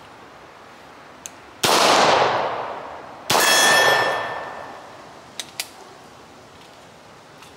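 Two shots from a Beretta 92FS 9 mm pistol about a second and a half apart, each trailing off in a long echo. The second is followed by a ringing clang, like a hit on a steel target. A couple of faint sharp clicks come after the shots.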